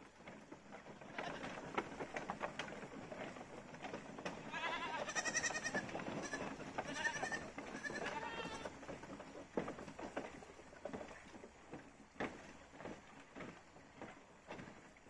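Goats bleating, a few wavering calls in the middle, over scattered knocks and clatters of hooves and footsteps on a bamboo footbridge.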